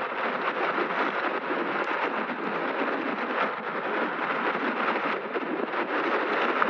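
Steady rush of wind and tyre noise from an e-bike moving fast on pavement.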